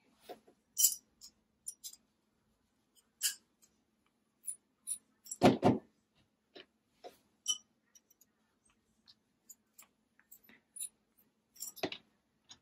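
Small metal clicks and taps of screws, engine parts and a hex driver being handled and set down on a rubber work mat while a small two-stroke nitro engine's back plate is unscrewed, with a louder knock about five and a half seconds in and another near the end.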